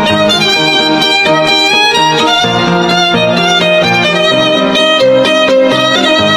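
Backing music for the edit: a melodic track with a repeating bass pattern.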